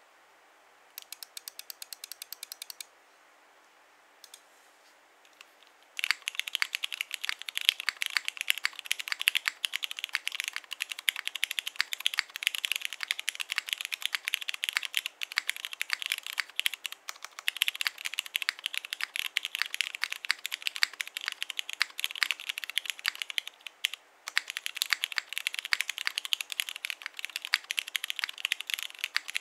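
Fast continuous typing on a Monokei x TGR Tomo mechanical keyboard with lubed and filmed Cherry MX Ultraglide Black linear switches, an aluminium plate, top mount, bottom-case foam and PBTfans PBT keycaps. It starts about six seconds in, with a brief pause near the end. Before that comes a short run of evenly spaced clicks and a few scattered keystrokes.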